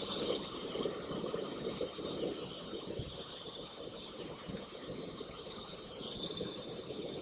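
Water boiling hard in a pot on a stove: a steady high hiss over low, irregular bubbling.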